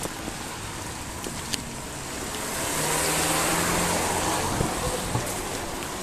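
A car passing on a wet road: tyre hiss swells up, peaks about halfway through, then fades away.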